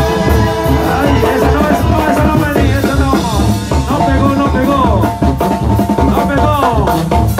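Music with a steady drum beat and held melody notes.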